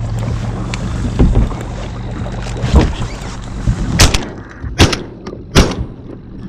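Boat motor running steadily, dying away partway through, then three sharp shotgun shots about a second apart, fired at crippled sea ducks on the water.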